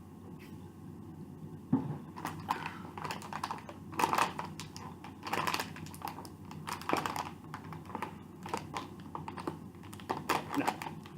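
A knock about two seconds in, then irregular crackling and crinkling as a snack bag of kraut chips is handled and opened.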